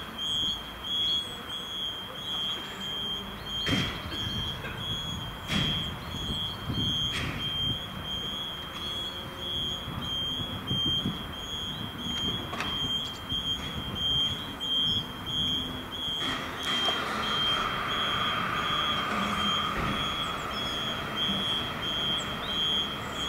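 Fire station call-out alarm: a high electronic beep repeating steadily with short breaks. Several sharp knocks come through it, and from about two-thirds of the way in a steady rushing noise joins.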